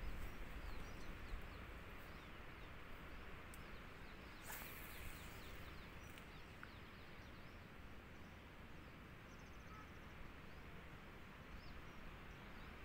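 Faint outdoor background noise: a steady low rumble with scattered faint bird chirps, and a brief rush of noise about four and a half seconds in.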